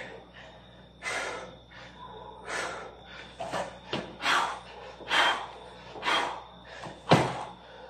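A man breathing hard and fast from exertion during Navy SEAL burpees, with a sharp gasping breath about once a second. The loudest breath comes about seven seconds in.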